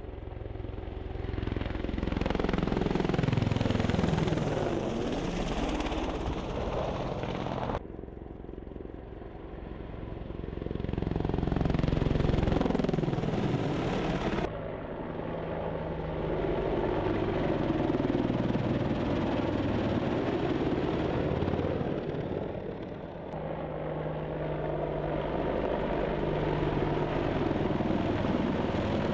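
Helicopter turbines and rotors passing by in a series of separate clips, each pass sliding down in pitch as it goes by. The sound cuts abruptly from one clip to the next, about eight and fourteen seconds in.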